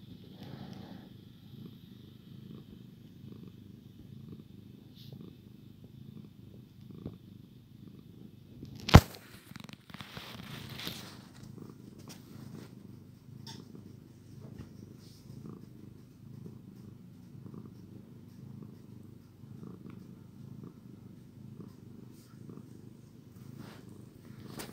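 Domestic cat purring, a steady low rhythmic rumble, with one sharp click about nine seconds in.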